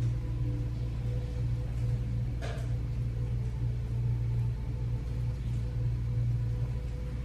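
A steady low hum with a few faint steady tones above it, and one brief soft sound about two and a half seconds in.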